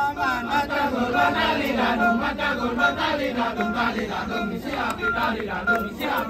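Kecak chorus: many men chanting rhythmic syllables together, with short held sung notes over the pulse.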